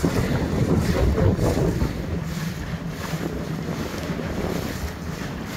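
Wind buffeting the phone's microphone over the low, steady running of the shanty boat's motor as it cruises on the river, with water washing past the hull.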